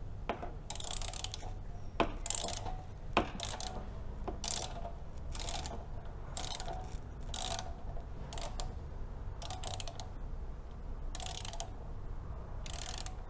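Ratchet head of a torque wrench clicking in short runs, about once a second, as it is swung back and forth to loosen the motorcycle's exhaust clamp bolt.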